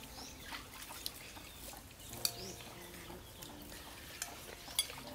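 Metal spoons clinking in bowls a few times, with faint bird calls in the background.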